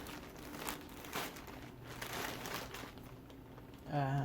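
Irregular crinkling and rustling of plastic packaging as plush toys are handled and pulled out of a box. A person's voice makes a short held sound near the end.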